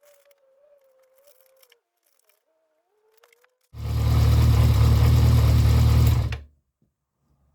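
Yamaha XJ600's air-cooled inline-four engine sounding for about two and a half seconds, starting abruptly partway in and cutting off suddenly.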